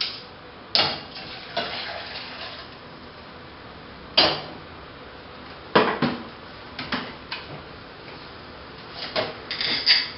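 A stainless saucepan, plastic measuring jug and electric kettle clinking and knocking against the gas stove's grate and counter as they are handled and set down, a sharp knock every second or two. Near the end comes a quick run of clicks as a gas burner is lit with a long lighter.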